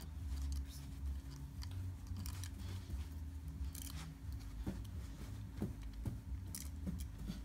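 Faint scattered clicks and rustles of plastic toys being handled, over a steady low hum.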